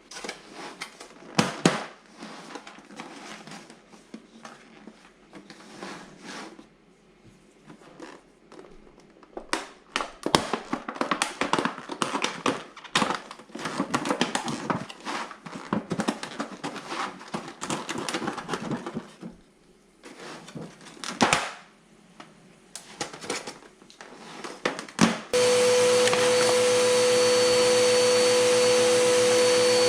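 Irregular clattering and rustling, then a vacuum cleaner switches on about 25 seconds in and runs steadily with a constant whine.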